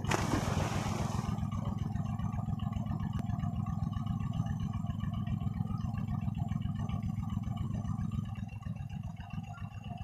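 A person diving headfirst into pond water: one splash at the start, lasting about a second. A steady low rumble runs underneath and eases off near the end.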